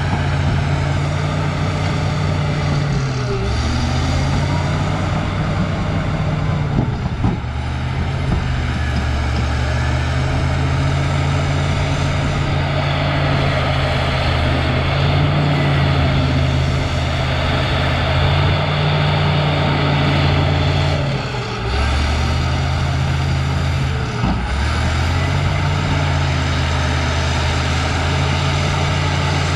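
Cat D6H crawler bulldozer's diesel engine running hard under load. Its low note drops and picks back up several times as the machine works.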